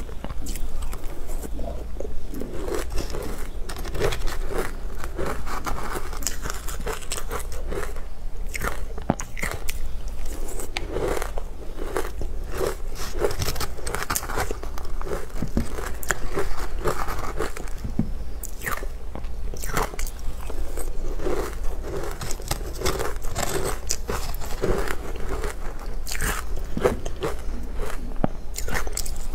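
Close-up chewing and biting of crunchy, crumbly food: a dense run of irregular crunches and crackles, mouthful after mouthful.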